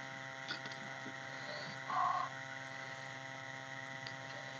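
Steady electrical mains hum, with a few faint soft ticks of fingers squeezing and mixing rice and green chilli on a steel plate, and one brief faint tone about two seconds in.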